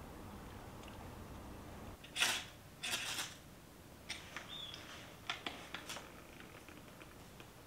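A match struck twice in quick succession along a matchbox, two short rasping scrapes, followed by a few light clicks and ticks as the burning match is held to the kindling in a wood stove.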